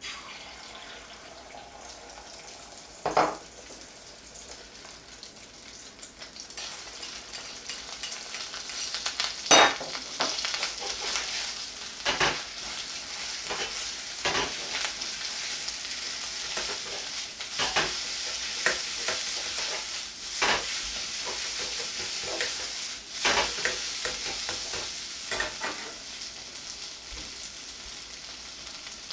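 Beaten egg sizzling as it hits hot lard in a wok, then stir-fried with a metal ladle together with rice: a steady frying sizzle that grows louder after about eight seconds, broken by sharp metal clanks of ladle and wok, the loudest about nine and a half seconds in.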